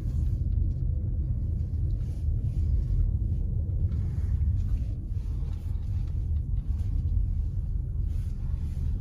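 Steady low rumble of road and engine noise heard inside a moving car.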